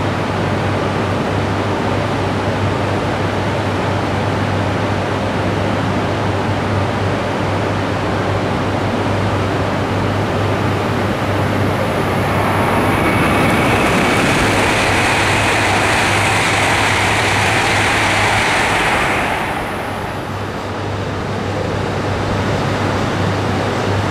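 E5 series Shinkansen train passing through a station at speed: a rushing roar that builds, is loudest for about six seconds, then falls away quickly, over a steady low background hum.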